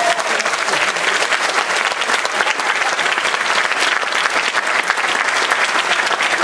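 Theatre audience applauding steadily, a dense clatter of many hands clapping.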